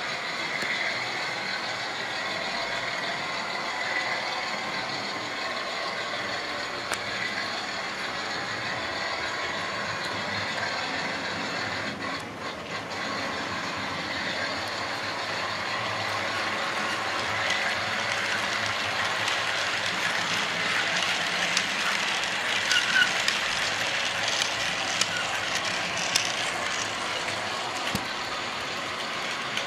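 Model trains running on a model railway layout: the steady whirr of their small electric motors and the clatter of wheels over the track. It grows louder about halfway in, with a run of sharp clicks as a train passes close.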